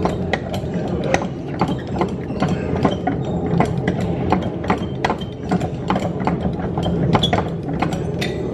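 Hand-cranked handle of a museum viewing exhibit being turned, its ratchet clicking a few times a second, over a steady low hum.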